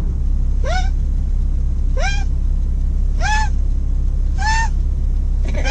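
A person's voice imitating a bird: four short, high calls about a second and a half apart, each sliding up and then holding, over the steady low rumble of a car's interior.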